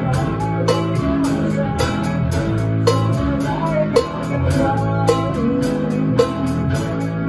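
Rock band playing live: electric guitars, bass guitar and a Pearl drum kit, with a steady beat and a sharp accent about once a second.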